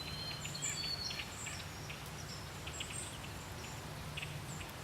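Small birds chirping and whistling in short repeated calls over a steady low background hum of outdoor noise.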